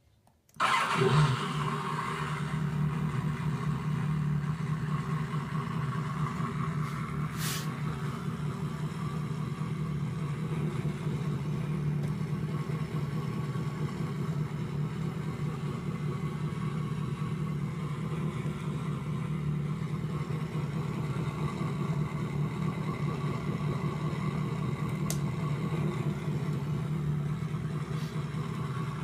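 Motorcycle engine catching with a brief burst of revs, then idling steadily.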